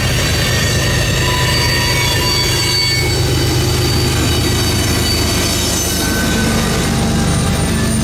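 Norfolk Southern manifest freight train rolling past, its wheels squealing on the rails in a cluster of high, shifting tones over a steady low drone.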